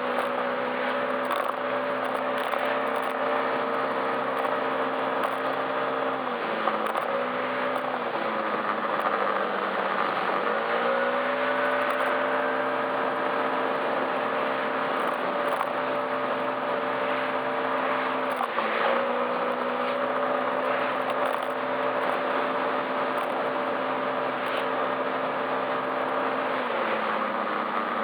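Yamaha Majesty S scooter's single-cylinder four-stroke engine running at cruising speed over a steady rushing noise. The engine note sags and climbs back several times as the throttle is eased and reopened, most deeply about ten seconds in and again briefly near the end.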